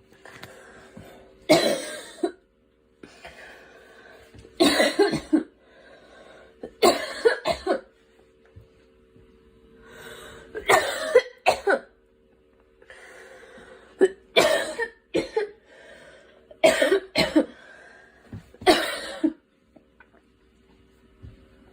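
A girl coughing repeatedly, in about seven bouts of one to three sharp coughs each, a few seconds apart.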